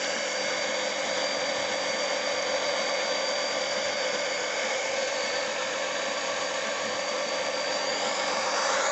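Small electric oil-extractor pump running steadily with a constant motor whine, sucking used engine oil up through the dipstick tube and out its hose into a bucket.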